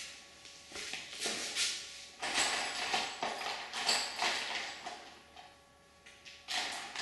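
Handling noise: irregular rustling and light clatter of parts being moved about by hand, with a quieter stretch near the end.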